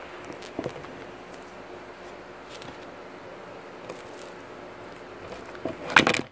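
Handling noise from the recording device: light taps and rustles over a faint steady room hum, then a louder burst of rubbing and knocks near the end as the device is grabbed or moved.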